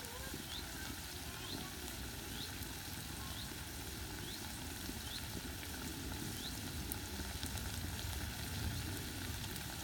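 Green beans sizzling and frying in a pan over a wood fire, a steady hiss with a few small crackles. A faint, short, high rising chirp repeats about once a second through most of it.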